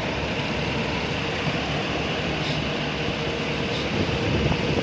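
Boat engine running steadily, a low rumble with a faint steady hum, mixed with the wash of water.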